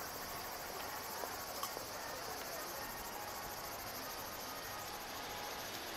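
Insects singing: a steady, high-pitched, finely pulsing trill that carries on evenly, with faint background noise underneath.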